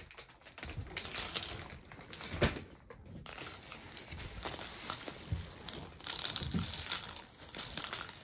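A plastic bag crinkling and rustling as it is handled close to the microphone, with a knock about two and a half seconds in.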